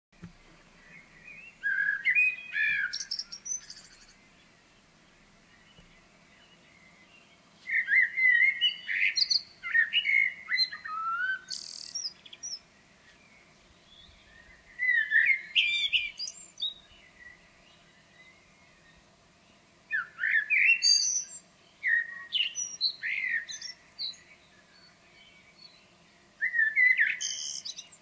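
Eurasian blackbird singing: about five fluting, warbling phrases separated by pauses of a few seconds, several of them ending in a high, squeaky twitter.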